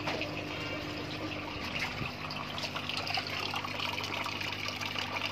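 Water splashing and trickling steadily into an aquarium sump filter's chambers, with a steady low hum underneath.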